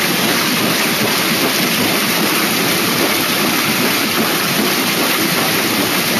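Floodwater rushing and churning around a waterwheel: a steady, loud rush of white water.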